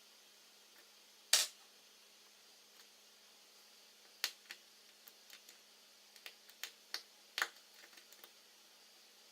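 Sharp clicks and taps of small tools and parts being handled while an iPhone 5's internals are reassembled. There is one loud click about a second and a half in, then a scatter of lighter clicks from about four to eight seconds in, over a faint steady hiss.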